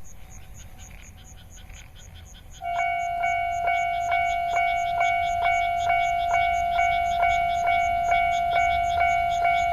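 Japanese level-crossing warning bell starting up about two and a half seconds in and ringing in a steady, even ding, a little over two strikes a second: the signal that a train is approaching. Before it starts there is only a low rumble and a faint ringing.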